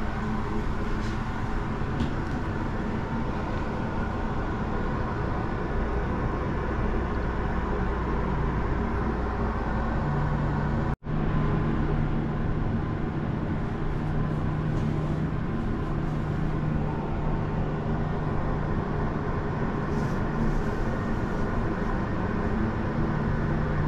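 Steady hum and rumble inside a ferris wheel gondola, with a low drone under an even wash of noise. The sound cuts out for an instant about halfway, and the drone comes back at a higher pitch.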